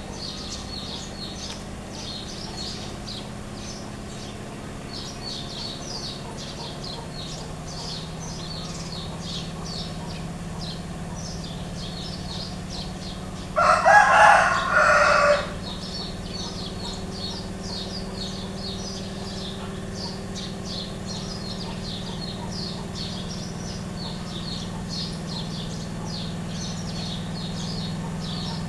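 A rooster crows once, loudly, about halfway through, in two parts lasting about two seconds. Rapid high chirping and a low steady hum run underneath throughout.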